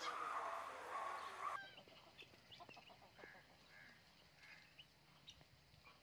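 Alexandrine and Indian ringneck parrots calling: a louder, rough call for the first second and a half, then after a sudden drop only soft, short chirps and small clicks.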